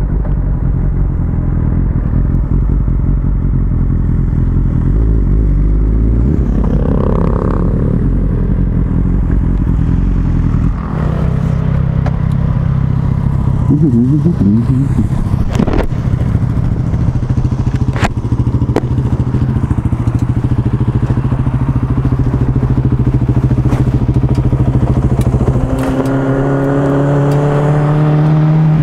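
Motorcycle engine running under way, its note changing several times as the throttle and gears change and climbing near the end, with a few sharp clicks in the middle.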